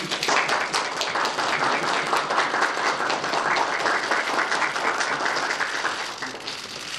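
A small group of people applauding. It starts abruptly and dies away near the end.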